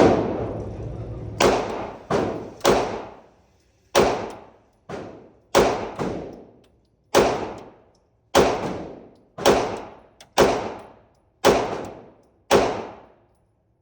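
A string of gunshots fired in quick succession, about fifteen at roughly one a second, each with a short echoing tail.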